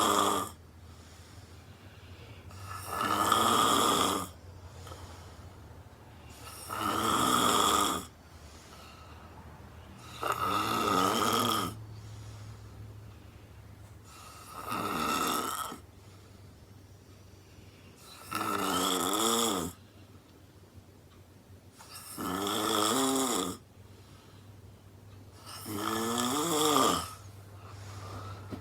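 A woman snoring extremely loud in her sleep: a snore about every four seconds, seven in all, each lasting about a second and a half.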